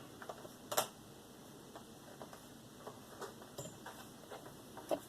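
Faint scattered clicks and light handling sounds of plastic laptop housing parts being fitted back together, with a sharper click a little under a second in and another near the end.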